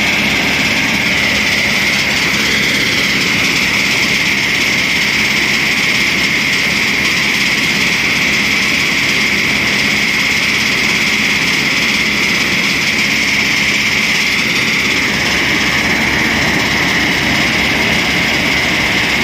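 Groundnut thresher running steadily and loudly, a constant mechanical drone with a shrill band running through it, as threshed peanut pods spill from its outlet chute into a tub.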